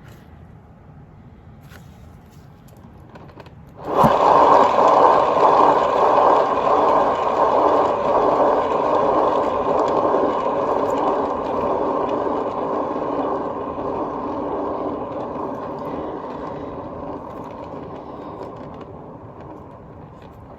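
Paint-pouring spinner turning the canvas to spread the poured acrylic. It starts suddenly about four seconds in, then slowly fades as it winds down.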